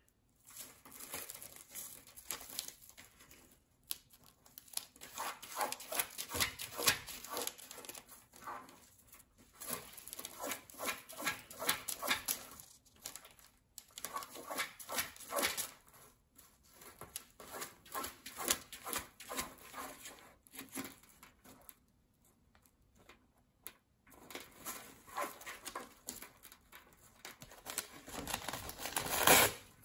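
African grey parrot scratching and digging with its feet and beak through seed and bread on a newspaper-lined cage floor: a rapid scratchy crinkling of paper and rattling of seed. It comes in bouts of a few seconds with short pauses between them, and the loudest bout is near the end.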